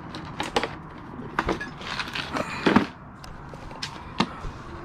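Irregular sharp plastic clicks and scrapes as the housing of a removed HVAC blend-door actuator is handled and pried at to open it, with the loudest snap just before three seconds in.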